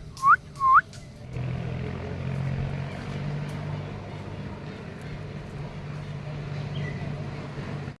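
Two loud, short rising whistle-like calls in the first second, then a steady low engine drone that starts about a second in and runs on evenly until it is cut off.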